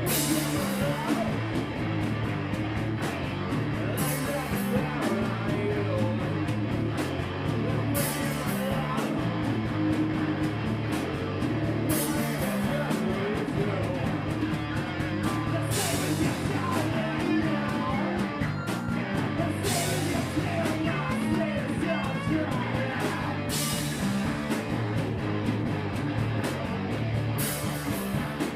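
Live rock band playing, with a crash cymbal struck about every four seconds.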